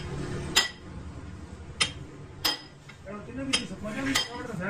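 Six sharp metallic clinks at uneven intervals, metal striking metal, each with a brief ring, over a steady low workshop hum.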